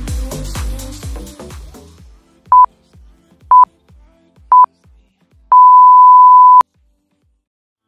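Workout interval timer countdown: three short beeps about a second apart, then one longer beep of the same pitch lasting about a second, marking the end of an interval. Electronic dance music with a steady beat fades out in the first two seconds.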